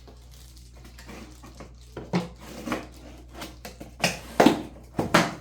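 Cardboard box and packing being handled: a quiet start, then a run of short knocks and rustles from about two seconds in, the loudest near the end.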